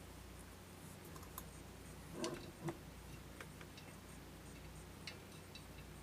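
Scattered light clicks and ticks, with two louder knocks a little after two seconds in, over a steady low hum.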